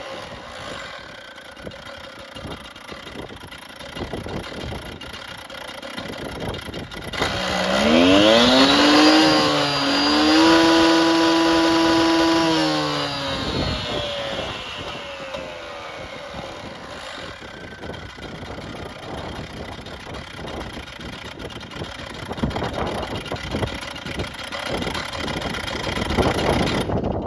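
Stihl gas-powered concrete cut-off saw's two-stroke engine idling, then revved up about seven seconds in, held at high speed for several seconds and let drop back to idle.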